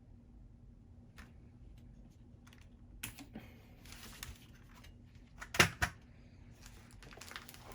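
Keys pressed on a mechanical keyboard: a few scattered clicks, then a loud double clack about two thirds of the way through, followed by lighter taps.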